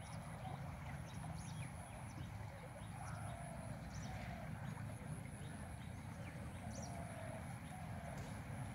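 Outdoor riverbank ambience: a steady low rumble of wind on the microphone, with faint bird chirps scattered throughout.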